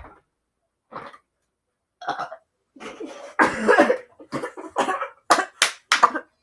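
A girl burping after drinking cola, one long burp about halfway through, followed by several short coughs.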